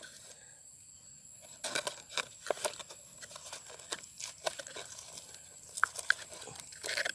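Irregular rustling, crinkling and small clicks of hands handling earthworm bait and fishing gear.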